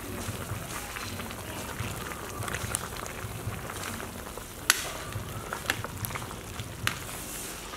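Large pot of vegetable soup bubbling at a hard boil while a metal ladle stirs it, with a few sharp clicks, the loudest a little past halfway.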